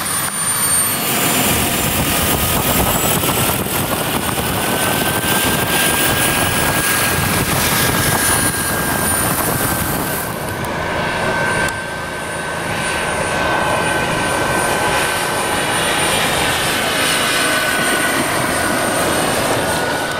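Giant radio-controlled Kamov Ka-32 model helicopter with coaxial twin rotors, its drive and rotors running up to speed and then flying. A steady whine rises in pitch over the first few seconds and then holds level under the rotors' whirring.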